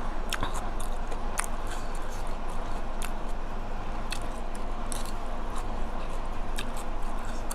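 Close-miked chewing of a mouthful of spicy red-ant-egg salad, with irregular wet mouth clicks and smacks.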